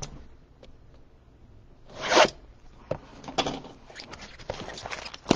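A blaster box of trading cards being torn open: one sharp ripping tear about two seconds in, followed by several smaller scrapes and rustles.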